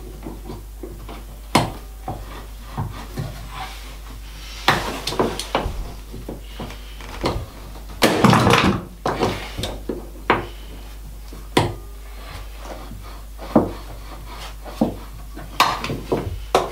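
Locking pliers clamped on a rusted nut of a floor-timber bolt, worked back and forth to undo it: irregular clicks and knocks of metal on metal and wood, with a couple of longer scraping spells, the longest about eight seconds in.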